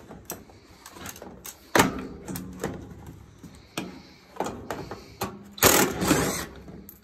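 A power driver on a long bit extension backs screws out of a front-load dryer's door hinge. It runs in a few short spells, with sharp knocks of the bit and tool against the metal. The longest run comes about six seconds in.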